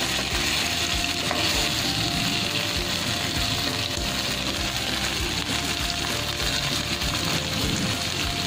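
Hilsa fish steaks sizzling steadily in oil and spice paste in a frying pan, with a metal spatula scraping and knocking in the pan as the pieces are turned.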